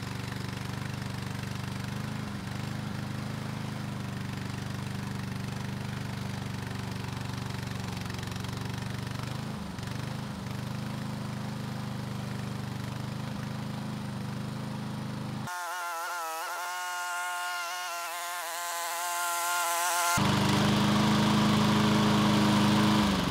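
Remote-control tracked lawn mower running steadily while it carries a rider up a steep slope. For several seconds past the middle the low running sound drops out and a wavering high whine takes its place. The mower then comes back louder and stops shortly before the end.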